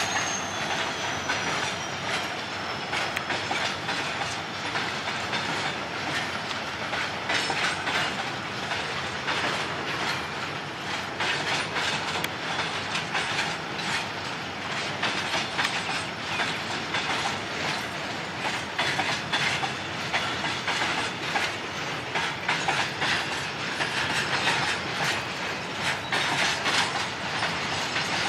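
Train wheels clattering over rail joints as a train runs past, a dense stream of clicks over a steady rumble. A high whine slides down in pitch during the first few seconds.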